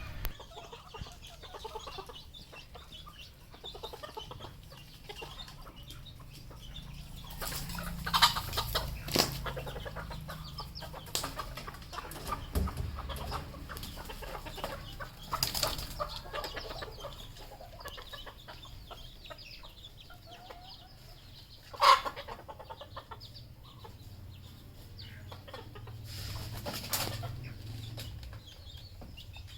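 Red junglefowl clucking at intervals, with several short louder bursts, the sharpest about two-thirds of the way through.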